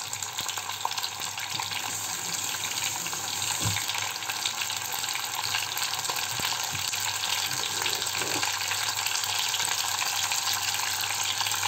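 Chicken bones and trimmings sizzling in hot oil in a small saucepan, being toasted before water goes in for a stock. The sizzle is steady and grows slightly louder.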